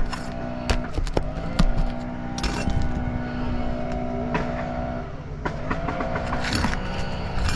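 An engine runs steadily throughout, its pitch rising slightly twice. Over it come scattered sharp clicks and scrapes of hand tools working at asphalt roof shingles.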